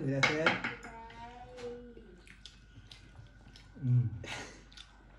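People eating momos with chopsticks: small scattered clicks of chopsticks against plates and chewing, between short wordless voice sounds and hums.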